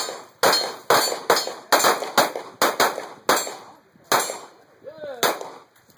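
Several handguns firing in quick, uneven succession, about a dozen shots from more than one shooter, thinning out over the last two seconds.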